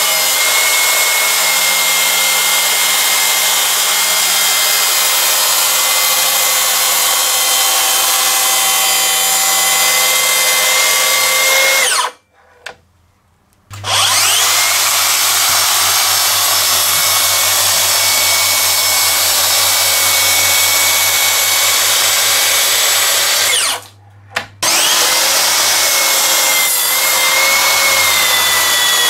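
Makita DSP601 18Vx2 (36 V) brushless cordless plunge track saw running and cutting along its guide rail, a steady high motor whine over the cutting noise. Three runs, broken by short silences about twelve and twenty-four seconds in.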